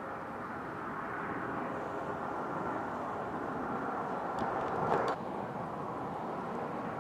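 Highway traffic passing on the adjacent lanes: a steady rush of tyres and engines that swells to its loudest about five seconds in, then drops suddenly.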